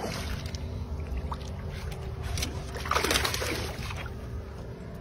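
Water splashing at the surface as a hooked bass thrashes beside the boat, loudest for about a second around three seconds in, over a steady low rumble.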